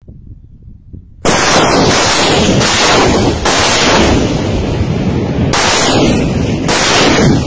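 Rockets launching from a multiple rocket launcher mounted on a pickup truck: a sudden, very loud rushing blast about a second in, then a string of further launches, each bringing a fresh surge of roar.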